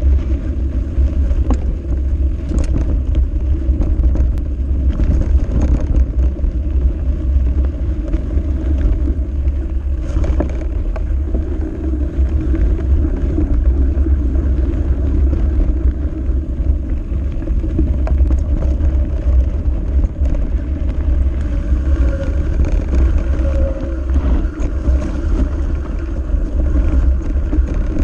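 Steady wind buffeting and rumble on a handlebar-mounted camera as a mountain bike rolls fast down a dirt singletrack, with tyre noise and frequent rattles and knocks over rough ground.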